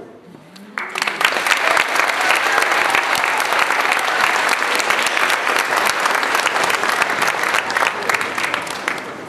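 Audience applause: a crowd clapping, starting about a second in after a short lull, dense and steady, easing slightly near the end before it cuts off suddenly.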